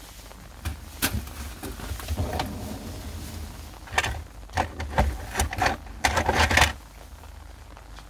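Objects being handled: a run of sharp clicks and knocks with some rustling, thickest about four to six and a half seconds in.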